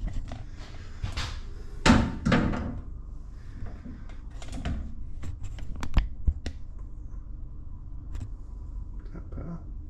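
Handling noise: a couple of knocks and thuds about two seconds in, then a run of sharp clicks about five to six and a half seconds in, as the camera and the valve-seat machine's tool-setting fixture are handled, over a steady low hum.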